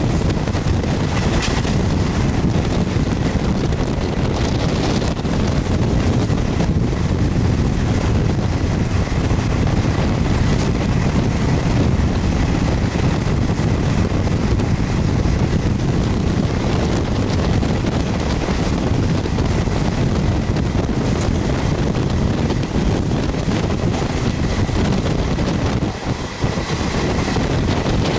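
Moving passenger train, heard from an open window or door: a steady rumble of the train running, with wind buffeting the microphone.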